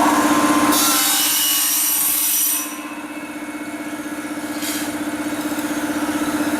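CNC corner cleaning machine running on a welded uPVC frame corner: a steady motor hum under a high-pitched cutting noise that drops away about two and a half seconds in, then slowly builds again.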